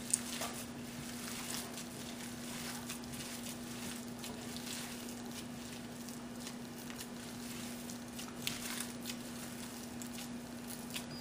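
A gloved hand squishing and mashing boiled potatoes with spices in a glass bowl: faint, irregular soft squelches and small ticks. A steady low hum runs underneath.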